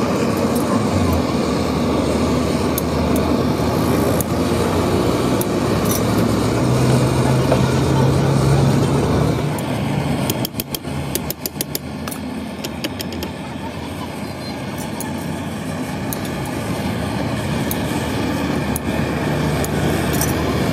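Motor vehicle engines running and passing, swelling twice. Just after the middle comes a quick run of sharp clicks.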